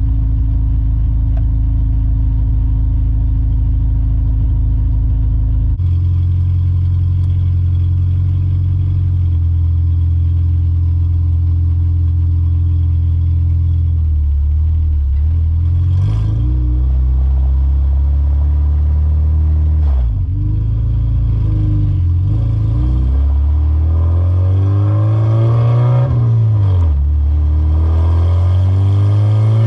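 Honda Integra's swapped-in K24 four-cylinder engine, heard from inside the cabin while driving. It runs at a steady pitch at first, then pulls through the gears, the revs rising and falling back at each of three shifts in the second half.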